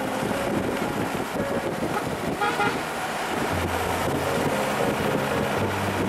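Steady road and engine noise heard from inside a moving vehicle, with a short vehicle horn toot about two and a half seconds in.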